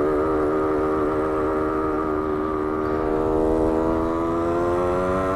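1972 Yamaha LT2 100's single-cylinder two-stroke engine running under steady throttle, its pitch creeping slowly upward.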